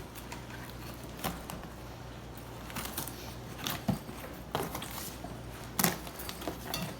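Scattered rustles and clicks of a cardboard shipping box being handled and opened, over a steady low electrical hum.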